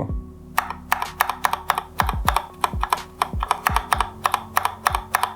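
Keystrokes on a GamaKay LK67 hot-swap keyboard with Gateron Red linear switches and PBT keycaps: keys are pressed in quick, uneven succession, several sharp clacks a second, starting about half a second in. The switches and stabilisers are stock and unlubricated, with no damping foam.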